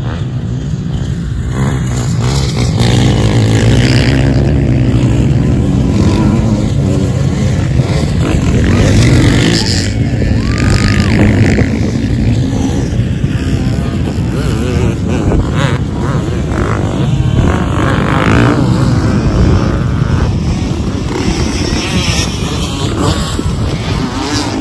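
Many off-road dirt bikes racing off a mass start and passing close by, a dense mix of engines revving at once. The noise builds over the first few seconds, then stays loud.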